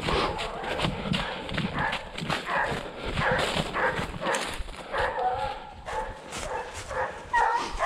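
Quick footsteps over rough ground, scuffing and knocking, with a hunting hound's voice breaking in now and then.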